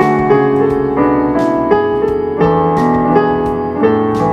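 Yamaha PSR-EW310 portable keyboard's piano voice playing a slow melody over chords, notes struck roughly twice a second and ringing on as they fade.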